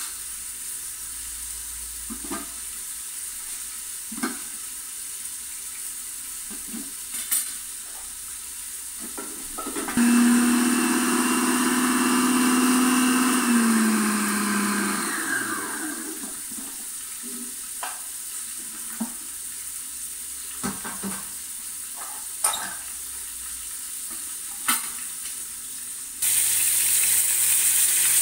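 An electric food processor runs for about five seconds, chopping garlic, then winds down with its pitch falling. Scattered clicks of the bowl and lid being handled. Near the end, loud sizzling of chopped onion and chicken frying in a pot, stirred with a wooden spoon.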